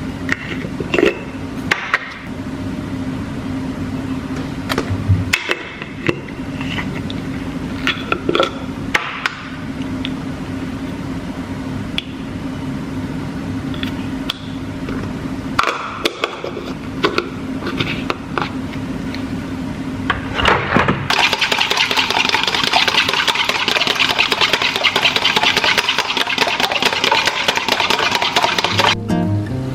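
Kitchen cooking sounds: a steady low motor hum with scattered clicks and knocks of utensils, then, about two-thirds of the way in, a loud even hiss lasting about eight seconds that stops suddenly.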